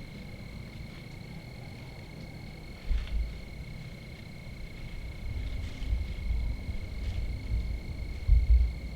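A steady high-pitched whine, with a few low rumbling bumps about three seconds in, near the sixth second and near the end.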